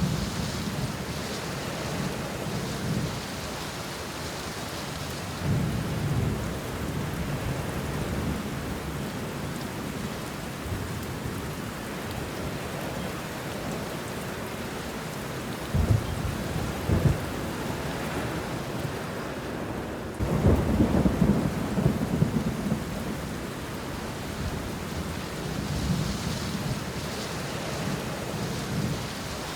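Steady rain falling on banana leaves and bushes, with thunder rumbling several times. Two sharp cracks come at about the middle, and the loudest rumble follows a few seconds later.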